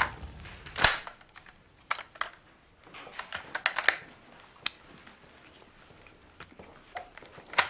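Irregular light clicks and knocks in a quiet room, the loudest about a second in, a small cluster a few seconds in and another sharp one near the end.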